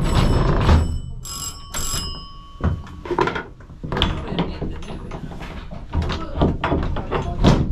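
Vintage museum tram's bell struck twice in the first two seconds, each ring hanging on with a clear tone, followed by irregular knocks and clatter.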